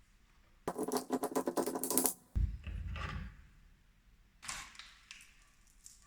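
A fast run of sharp mechanical clicks, like a ratchet, lasting about a second and a half, then a low knock with a short rustle; another brief rustle follows near the end.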